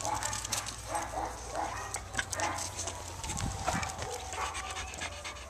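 A Staffordshire bull terrier cross moving about on concrete, its claws tapping and clicking in quick irregular steps.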